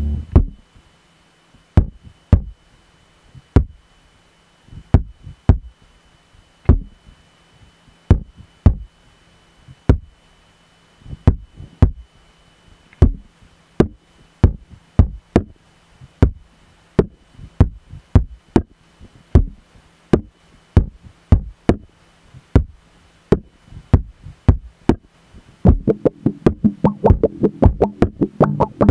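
Sharp percussive knocks from an electric instrument played through an effects pedalboard, spaced unevenly about one or two a second over a faint steady electronic hum. Near the end they turn into a fast, dense stream of clicks with a low pitched tone under them.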